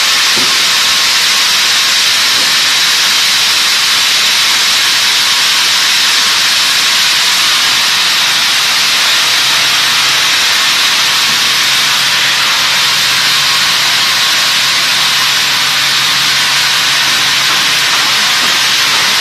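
Large vertical band sawmill with its CNC log carriage running: a loud, steady hiss of machinery, with a low hum joining about halfway through.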